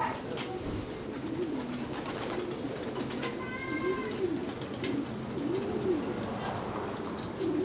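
Racing pigeons cooing in the loft, a run of low coos that rise and fall in pitch, one after another.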